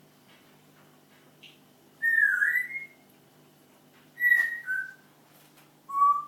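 Pet parrot whistling: three short calls. The first is a rising whistle, the second a higher note dropping to a lower one, and the third a short, lower whistle near the end.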